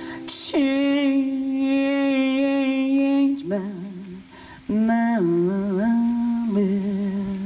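A woman's voice singing long held notes, unaccompanied: one long steady note for about three seconds, a short wavering phrase, then lower sustained notes.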